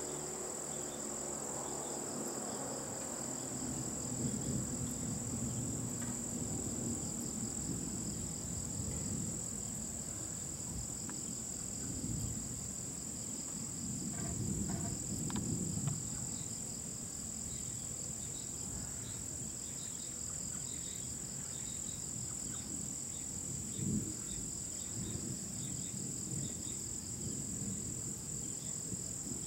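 Steady night chorus of crickets and other insects: a constant high trill with a faster pulsing trill just below it. A low rumble runs underneath, swelling around the middle and again briefly later on.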